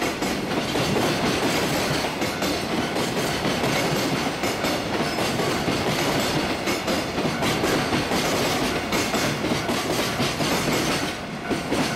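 Freight train rolling past, a steady rumble with its wheels clacking rapidly over the rail joints.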